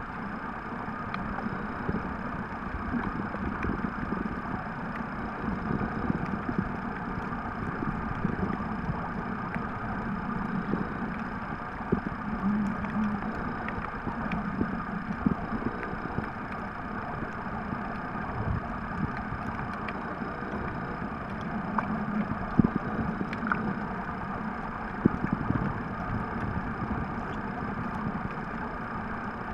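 Muffled underwater sound picked up through a waterproof camera held below the sea surface: a steady rumbling noise with occasional small clicks.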